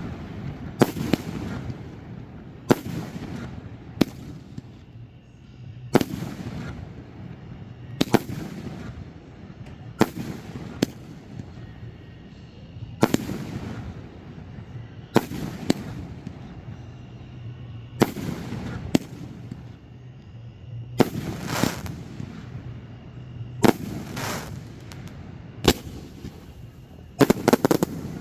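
Aerial fireworks shells bursting in steady succession, a sharp bang every one to two seconds, each trailed by a rolling rumble. A quick cluster of bangs comes near the end.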